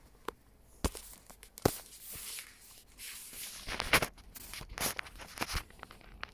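Irregular crinkling and rustling, broken by sharp clicks, as something is handled close to the microphone.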